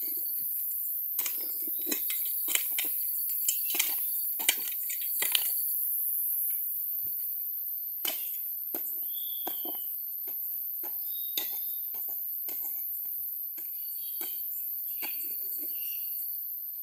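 Short-handled hand pick chopping into dry, compact soil: a quick run of about ten strikes over the first few seconds, then slower, lighter strikes as the hole deepens. A steady high chirring of insects runs underneath.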